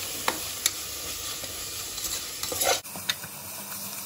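Tomato frying in an onion and spice masala in an aluminium pressure cooker, sizzling steadily while a slotted metal spoon stirs it, with light scrapes and clicks against the pot. Nearly three seconds in, the sizzle abruptly turns quieter.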